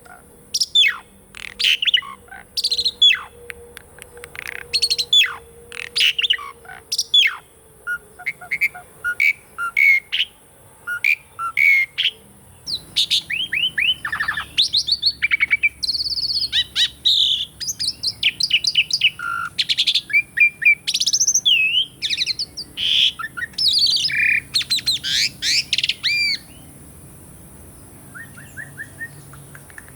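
Asian pied starling (jalak suren) singing: a string of sharp whistled notes, many sliding down in pitch, that turns into a dense, busy run of chattering phrases about halfway through, then drops to a few faint notes near the end. A steady high hiss runs underneath.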